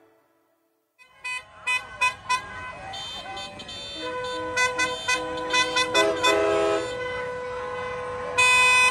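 Firecrackers popping and banging, starting about a second in, with a horn sounding a steady note from about four seconds in and a louder burst near the end.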